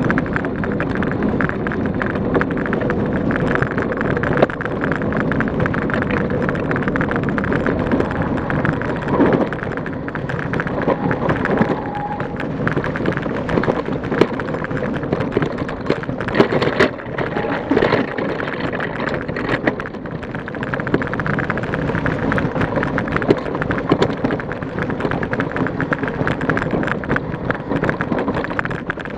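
Trek Elite 8.6 mountain bike ridden fast over a leaf-covered dirt trail: a steady rush of tyre noise and wind on the microphone, with constant rattling and knocking from the bike over bumps.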